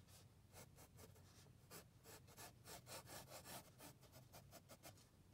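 Faint scratching of a pencil on sketchbook paper in quick repeated strokes, several a second.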